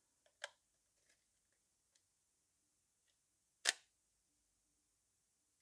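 Zenit ET SLR's focal-plane shutter fired on bulb (B): a small click about half a second in as it opens, then a louder, sharper clack about three seconds later as it closes. The shutter working normally.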